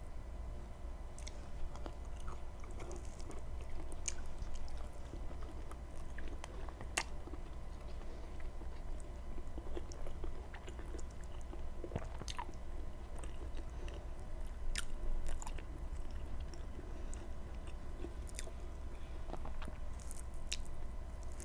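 Close-miked chewing and biting of a person eating fatty pork and rice, with irregular wet mouth clicks and smacks, over a steady low hum.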